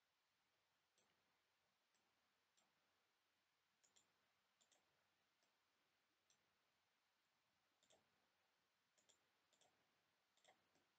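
Near silence broken by faint computer mouse clicks, irregular and often in quick pairs, about a dozen and a half in all.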